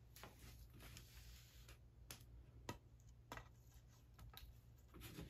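Faint, scattered clicks and taps of a lightsaber blade and hilt parts being handled as the blade is fitted into the emitter, over a low steady hum.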